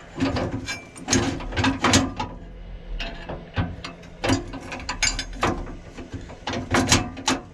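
Metal tool rest being fitted into the wood lathe's banjo and slid along the bed: a run of irregular metallic clicks, clanks and scrapes of metal parts knocking together.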